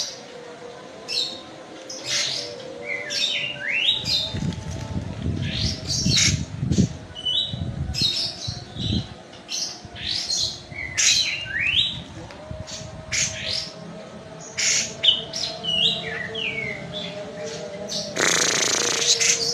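Kapas tembak songbird singing a fast, varied run of short high chirps and falling whistles. There is low thudding from about four to nine seconds in and a loud rustling burst near the end.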